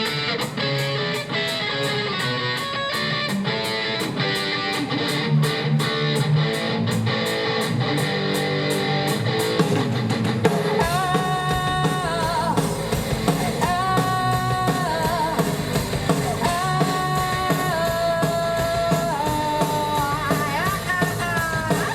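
A rock band playing live: a guitar-led intro, with bass and drums filling in about halfway through and a melody line carried over the top.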